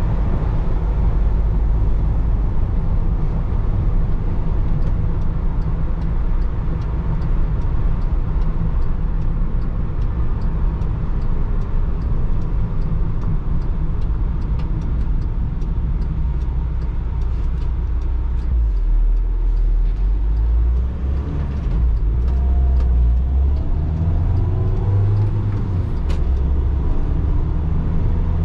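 A 2012 Volkswagen T5 van's 2.0 TDI four-cylinder diesel (84 hp) driving on the road, a steady low rumble of engine and tyres heard from the driver's seat. About two-thirds in, the sound dips briefly, then the engine note climbs as the van picks up speed.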